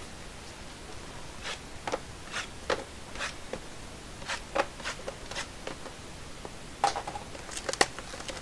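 A trading card box and its wrapping being handled and opened by hand: a string of short, irregular scrapes and clicks, with a few sharper ones near the end.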